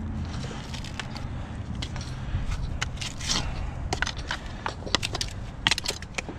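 Mussel shells clicking and scraping against rock as gloved hands pull them off oyster-crusted stones, then sharp knocks of a claw hammer working the shell-covered rocks, most of them in the second half.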